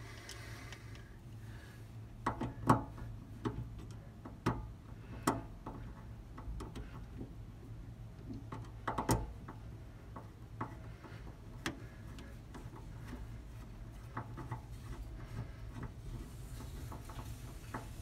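Scattered clicks and knocks of small metal hardware being handled and fitted as a jack-mount clamp is fastened with a spacer and machine screw, the loudest knocks about a quarter and half of the way through. A steady low hum runs underneath.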